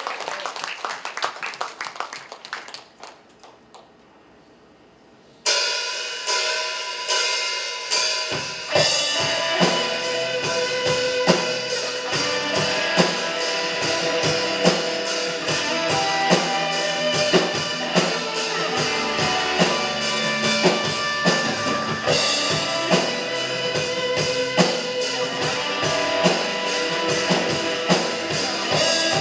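A worship band's last notes die away, then after a short pause the band starts an instrumental intro with drum kit and guitar. A deep bass comes in a few seconds later, under a steady drum beat.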